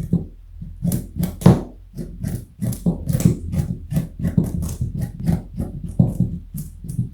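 Rabbit crunching a carrot, chewing in quick, even crunches of about four a second.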